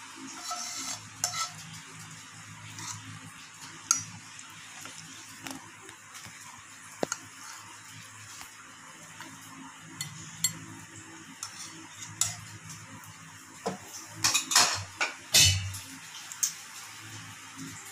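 Tongs clinking and scraping against a stainless steel pan and a ceramic plate as spaghetti is served, in scattered light taps with a louder flurry of clinks and knocks near the end.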